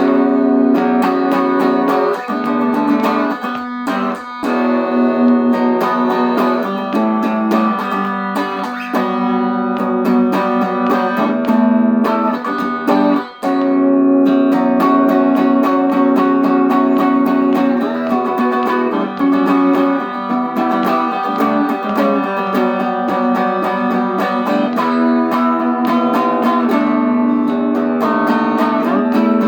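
1985 Made-in-Japan Fender Performer electric guitar played through a Peavey Valve King Royal 8 tube amp with no effects or pedals, sounding continuous notes with a short break about 13 seconds in.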